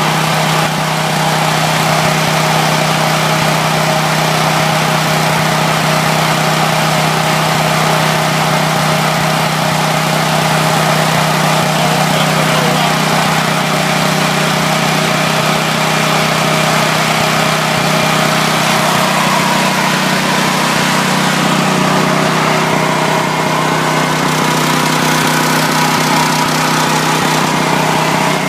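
Powerland portable generator's engine running steadily on natural gas, a constant even hum with a slight change in tone about two-thirds of the way through.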